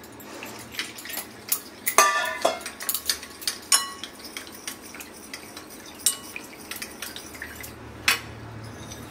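Steel spoon stirring cornflour into hot water in a white bowl, clicking and scraping against the bowl, with two louder ringing clinks in the first four seconds. Hot water pours in from a steel mug at the start.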